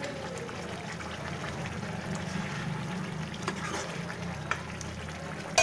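Sarson ka saag bubbling and sizzling in oil in a steel kadhai, with a ladle stirring and a few sharp clicks of metal against the pan, the loudest near the end. A low steady hum runs underneath.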